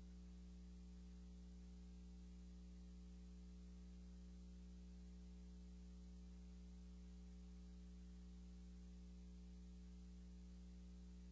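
Near silence: a steady low electrical hum with faint hiss, unchanging throughout.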